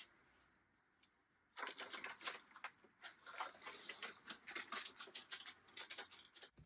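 A cat crunching dry food, faint quick irregular crunches starting about a second and a half in.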